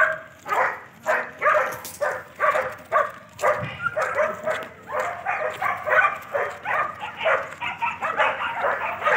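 Dogs barking repeatedly, about two barks a second, from a pack of young dogs playing together.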